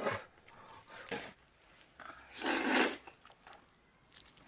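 Jjajangmyeon noodles being slurped and eaten, with one long slurp about two and a half seconds in and shorter mouth noises before it.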